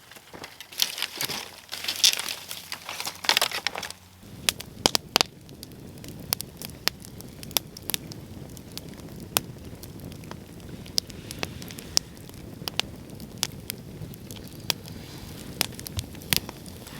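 Rustling, crumpling noise for about the first four seconds, then a juniper-wood campfire burning: sharp pops and crackles about two or three times a second over a steady low rush.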